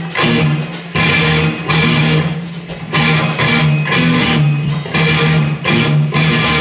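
Live rock band playing an instrumental passage: electric guitars, bass guitar and drum kit, loud, with regular sharp drum hits over sustained guitar chords and a steady bass line.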